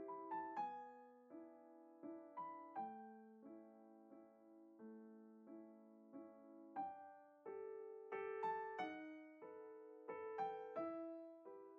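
Quiet background piano music: single notes and chords struck one after another, each ringing and fading away.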